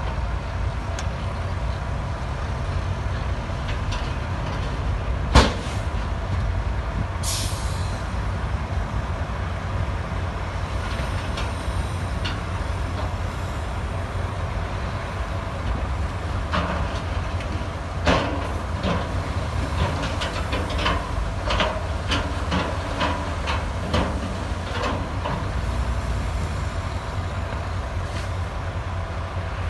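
Heavy diesel construction machinery running steadily, with a sharp bang about five seconds in and a short air hiss soon after. In the second half come a knock and a run of metallic clanks.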